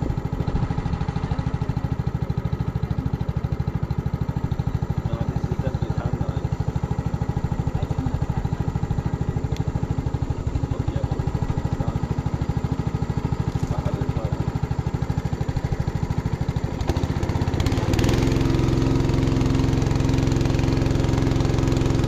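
A small combustion engine running steadily with a fast, even beat. About 17 seconds in it picks up and runs louder.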